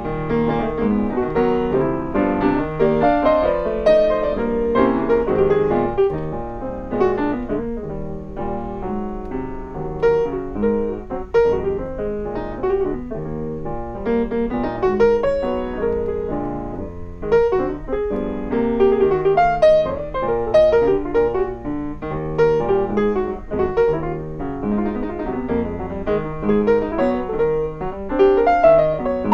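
Grand piano played solo, a busy flowing piece of many quick notes with fast runs sweeping across the keyboard.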